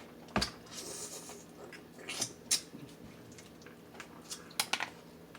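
Close-up eating sounds from someone working through boiled crab: a scattering of short, sharp clicks and smacks from chewing and handling the crab, with a small cluster of them near the end.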